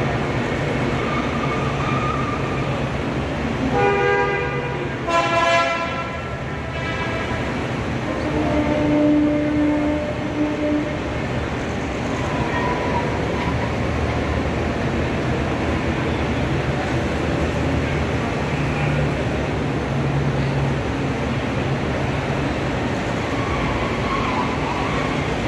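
Vintage GAZ cars driving past in a procession, engines running steadily, with horns honking around four to six seconds in and a lower horn note near ten seconds.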